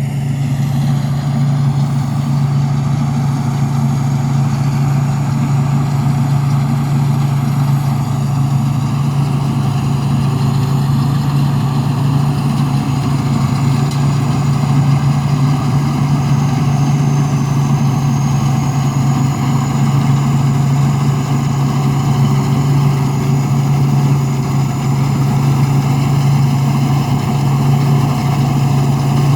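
Thai Seng combine harvester's turbocharged diesel engine running steadily under load while harvesting rice, a deep even hum with a faint high turbo whine that comes in about halfway through.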